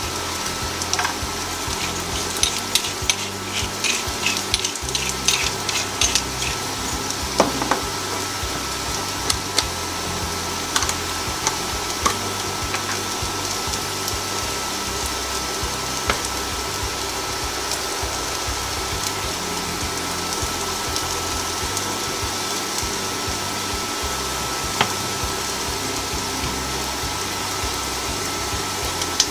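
Diced parboiled potatoes frying in clarified butter in a pan: a steady sizzle with frequent crackles and pops, busiest in the first several seconds and then settling to a more even sizzle.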